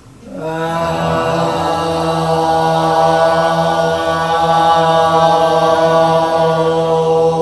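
Several voices holding one long, steady note together in a Korean traditional (pansori) vocal exercise. It is a long-tone breath drill, with the note sustained on a single deep breath. It begins just after the start.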